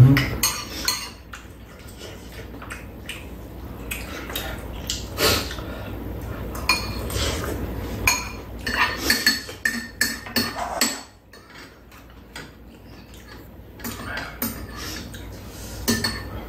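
Metal spoons and chopsticks clinking and scraping on ceramic bowls and a frying pan during a meal: irregular light taps, busiest a little past the middle.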